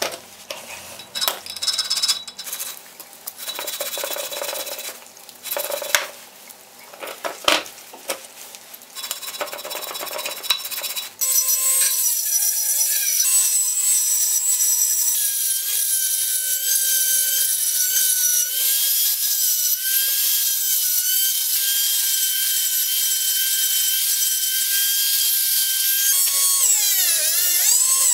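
A hand chisel scrapes paint off the serrated steel jaw teeth of a pipe vise in short, irregular strokes. About eleven seconds in, a small high-speed rotary tool starts with a sudden, steady high whine as its grinding stone grinds the jaw teeth. Its pitch dips and recovers near the end.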